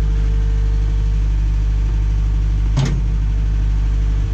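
Skid-steer loader's engine idling steadily, with a single short knock about three seconds in.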